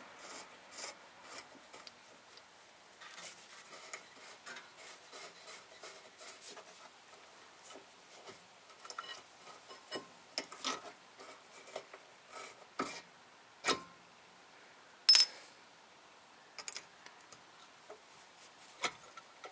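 A rear brake caliper slider bolt being threaded in by hand: scattered light metallic clicks and scraping against the caliper bracket, with a few sharper taps in the second half.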